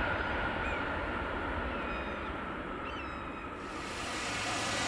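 Airbus A330-200's Rolls-Royce Trent 700 jet engines running at low power as the airliner rolls along the runway after landing: a steady whine over a low rumble, with a few faint bird chirps. A brighter hiss comes in near the end.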